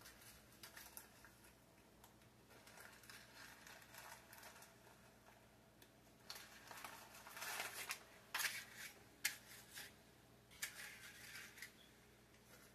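Near silence broken by faint, scattered rustles and light clicks of small kitchen handling, busiest about halfway through and again near the end.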